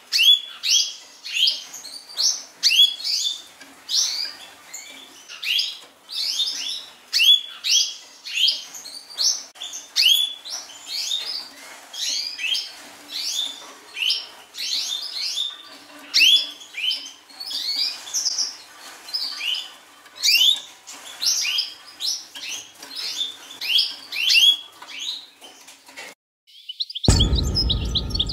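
Wild Atlantic canaries chirping in a cage: a steady run of short, high, upward-sweeping chirps, two to three a second. The chirping stops near the end, and after a brief gap loud music with deep bass notes starts.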